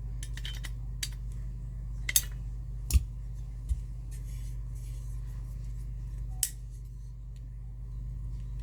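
Handling of a 270-SPO fire alarm pull station: a handful of sharp clicks and knocks of its parts being moved and set down, the loudest about three seconds in, over a steady low hum.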